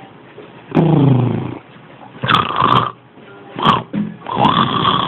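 A sleeping person snoring: about four rough, pitched snores in five seconds, the first sliding down in pitch.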